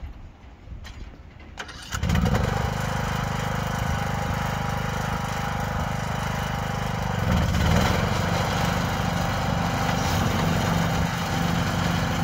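John Deere riding lawn mower's engine starting up about two seconds in after it had stalled, then running steadily; its note shifts briefly about seven seconds in.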